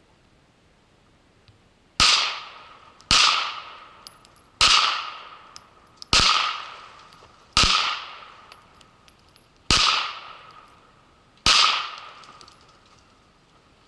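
Seven handgun shots fired one at a time, about one to two seconds apart, each followed by a fading echo.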